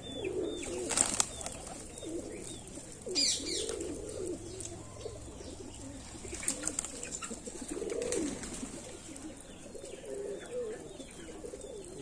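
A flock of domestic pigeons cooing over and over while they feed, with the low rolling coos overlapping from several birds.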